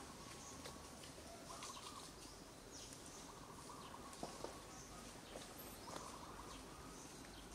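Infant macaque giving several short, faint cries, with faint high chirps behind.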